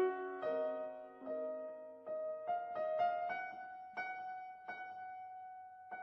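Background piano music: a slow melody of single struck notes that rise in pitch, settling on a held note about four seconds in that slowly fades.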